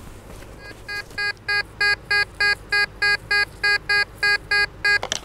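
Tesoro De Leon metal detector sounding its target tone: a string of short, identical electronic beeps, about three a second, as the coil is swung back and forth over a buried metal target. The target reads around 63–66 conductivity, which could be a coin or trash.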